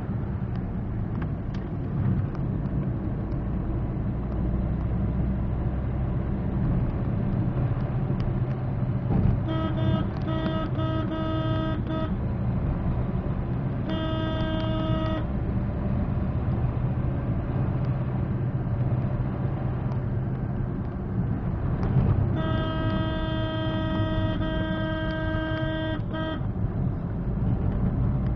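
Engine and road rumble inside a moving Maruti Suzuki Swift's cabin, with a single-tone vehicle horn honking three times. There is a string of short toots about ten seconds in, one toot of about a second near fourteen seconds, and a long run of honks from about twenty-two to twenty-six seconds.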